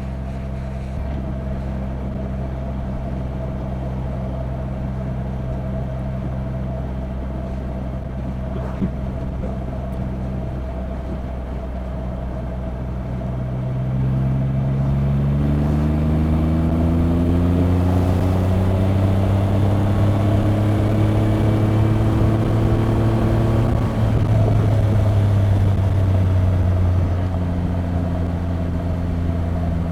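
Triumph Rocket 3 R Storm's 2.5-litre three-cylinder engine on its stock exhaust, first holding a steady cruise, then about halfway through getting louder as it accelerates with its pitch rising smoothly for several seconds. Near the end the pitch drops and it settles into a lower steady run.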